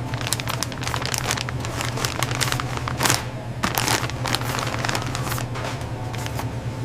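Machinery running with a steady low hum and dense, irregular crackling and clicking over it.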